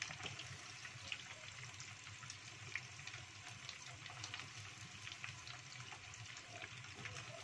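Battered chicken wings deep-frying in hot oil in a small pot, stirred with a wooden spatula: a steady sizzle with scattered small pops and crackles.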